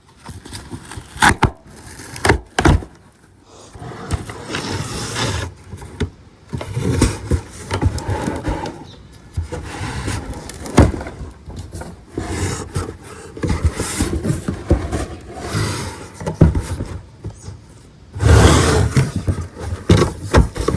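Cardboard shipping box being handled and opened: irregular scraping, tearing and rustling, broken by several sharp knocks.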